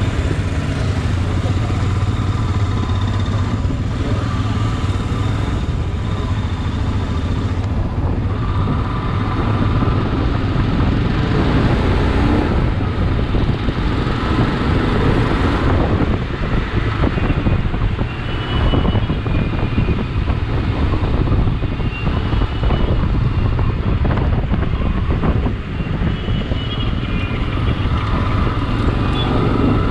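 Royal Enfield Himalayan's single-cylinder engine running as the motorcycle pulls away and rides along a highway, with wind noise on the mic and other motorcycles and trucks in the traffic.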